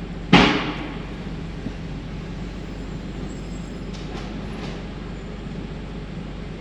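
Steady road and engine noise of a car driving, with one sharp, loud thump about a third of a second in that dies away within half a second. A few faint ticks follow about four seconds in.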